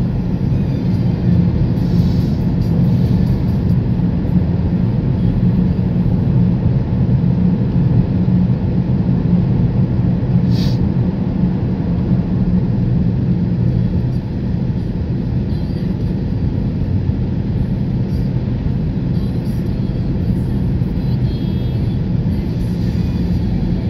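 Steady drone of a car's engine and tyre noise heard from inside the cabin while driving at road speed, with one brief click about ten seconds in.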